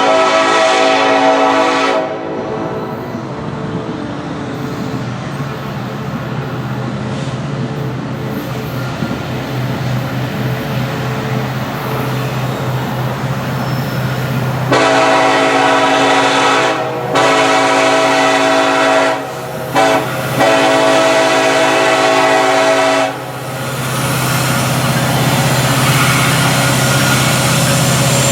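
Air horn of an EMD SD70ACe diesel locomotive, a chord of several tones. One blast ends about two seconds in, and the diesel engines then keep running under rail noise. Past the middle the horn sounds long, long, short, long, the pattern of the grade-crossing signal, and then the engine drone carries on.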